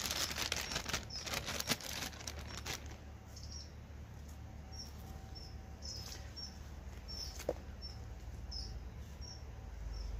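Crinkling and rustling of a bag being handled as a pigeon fillet goes into it, for about the first three seconds. Then a short high chirp repeats about twice a second, with a single sharp click near the end.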